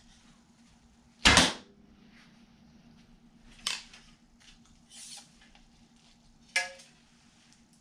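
A 50-pound PSE recurve bow shot about a second in: one sharp, loud thump of the string released and the arrow striking. It is followed by three fainter knocks and clacks, the last with a brief metallic ring.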